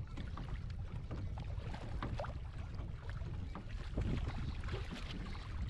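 Wind rumbling on the microphone over river water lapping and slapping against a small wooden boat's hull. A louder splash at the surface beside the boat about four seconds in.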